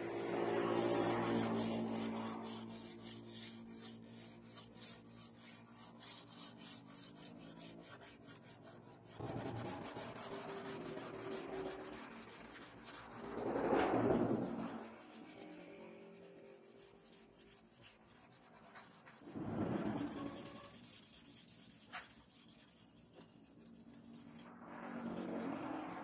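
Hand-held abrasive block rubbed back and forth along a steel knife blade, grinding and polishing its face. For the first several seconds it goes in quick, even strokes, about two a second; later come slower, louder sweeps, three of them.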